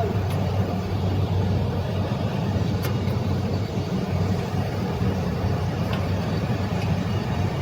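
Steady mechanical hum of running air-conditioning plant machinery: a constant low drone under a broad whirring noise, with a few faint clicks.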